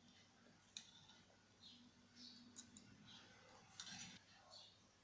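Near silence with a few faint clicks and clinks of kitchenware being handled, one about a second in and a small cluster near four seconds.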